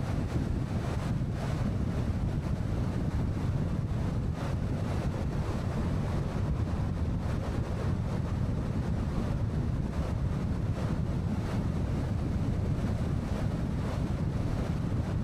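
Steady wind and road noise of a car driving along a highway, an even low rumble without a break.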